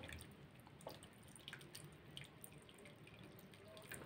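Broth poured from a pot over stuffed zucchini packed in a pan: a faint trickle with scattered small drips and splashes.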